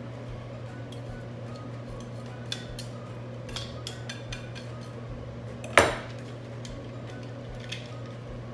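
Metal garlic press working and a chef's knife scraping pressed garlic off it over a stainless steel bowl: light scattered clicks and scrapes, with one sharp metallic clank a little before the end.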